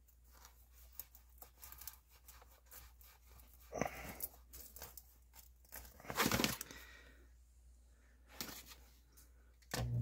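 Faint rustling and scraping of hands handling the float switch, its cord and the plastic around the sump pit, with a couple of louder scrapes. Near the end a steady electric hum starts suddenly: the Zoeller submersible sump pump motor switching on, triggered by the new tethered float switch.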